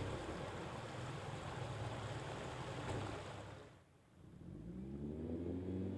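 Outboard motors on passing tow boats running with a steady low drone and water hiss. Just before four seconds in the sound drops away, then an outboard is throttled up, its pitch rising.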